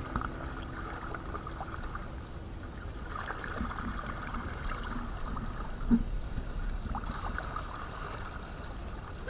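Water splashing and gurgling against the hull of a sit-on-top kayak moving over choppy sea, with a low wind rumble on the microphone. A single sharp knock about six seconds in.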